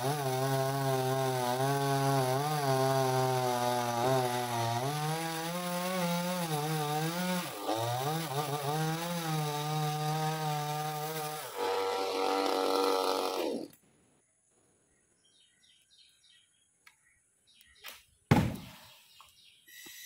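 Two-stroke chainsaw cutting through a coconut palm trunk, its engine speed dipping and recovering as it bites into the wood. About 13 s in it winds down and stops. A few seconds later there is one heavy thud.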